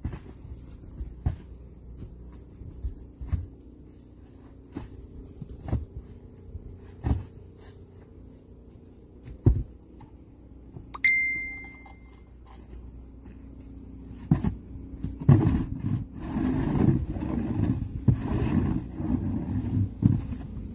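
Snow shovelling: scattered thumps of a shovel blade, a single ringing metallic clink about eleven seconds in, then a longer stretch of rough scraping through snow near the end.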